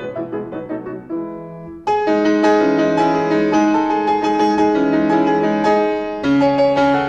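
Background piano music: a run of notes, a short held chord, then a fuller passage from about two seconds in, with a chord change near the end.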